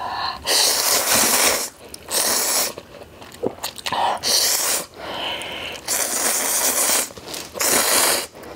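A person slurping instant ramyeon noodles off chopsticks: about five loud slurps, each half a second to a second long, separated by short pauses.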